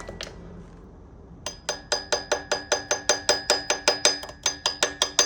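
Hammer tapping on a stuck main bearing cap of a Mazda Miata engine block to work it loose. About a second and a half in, a quick, even run of light metallic strikes begins, about five a second, each with a ringing tone.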